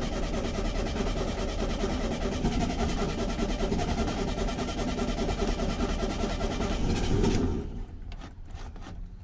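The starter motor cranks a VW Beetle's air-cooled flat-four engine steadily without it firing, while fuel is drawn up into a carburetor that has dried out from sitting. The cranking stops about seven and a half seconds in, followed by a few faint clicks.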